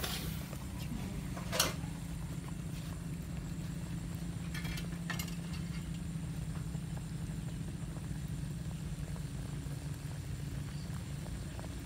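Pot of water boiling over a wood fire: a steady low rumble, with a sharp click about a second and a half in and a couple more around five seconds.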